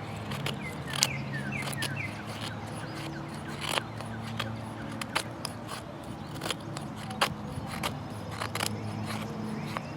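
Scattered sharp clicks and light scrapes from handling a Swiss Army knife and ferro rod, over a steady low hum. A few short falling chirps come about a second in.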